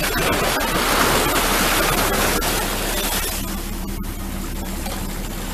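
Steady rushing of wind and sea water over a low steady hum, the rushing easing a little about three seconds in.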